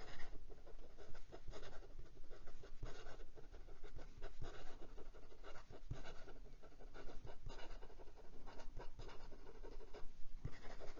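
Hong Dian 920 fountain pen's very fine, stiff steel nib scratching across notebook paper in quick looping cursive strokes, soft and irregular. The nib keeps up with the fast writing, though the writer finds it not the smoothest.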